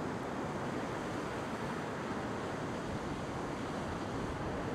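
Ocean surf breaking and washing across a flat rock shelf: a steady, even rush of water.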